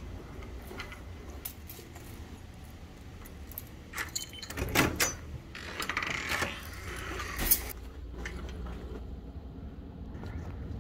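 A bunch of keys jangling, with scattered clicks and small knocks and one sharp click about seven and a half seconds in, over a low steady rumble.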